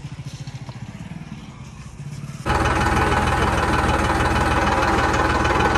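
Diesel tractor engine idling with an even low pulse. About two and a half seconds in it abruptly becomes much louder and stays steady.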